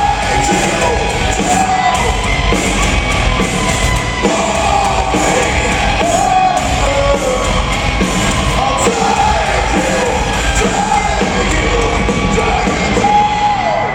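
Rock band playing live in a club, loud and dense, with a male lead singer's voice over the band, heard in the room's reverberation.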